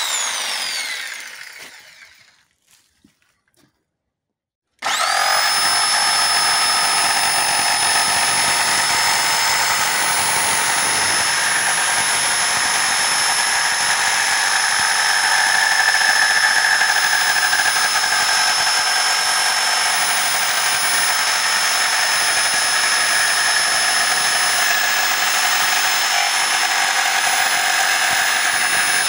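CAT DX57 electric jigsaw sawing through a wooden board. Its motor whine falls away as it stops at the start, and after a few seconds of silence it starts again suddenly and runs steadily through the cut.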